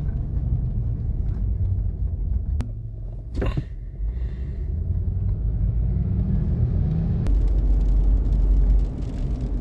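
Cabin sound of a 2003 Toyota 4Runner driving: a steady road and drivetrain rumble, with a short sharp noise about three and a half seconds in and a heavier low drone from about seven to nine seconds in.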